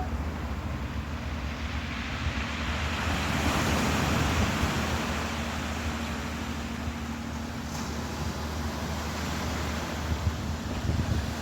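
Ocean waves washing, with wind on the microphone and a steady low motor drone underneath; the surf swells about three seconds in and eases off again.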